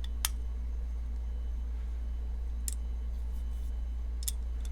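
Three small sharp clicks of a screwdriver bit on a folding knife's body screws as they are checked for tightness, spaced out by a couple of seconds, over a steady low hum.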